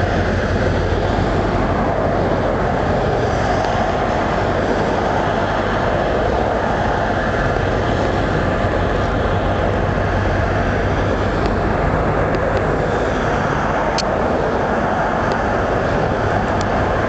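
Steady rumble of road traffic, with a low hum underneath.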